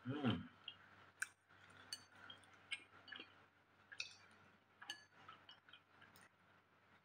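Scattered light clicks of chopsticks against a ceramic bowl of chicken noodle soup as a man eats, with a short murmur at the very start.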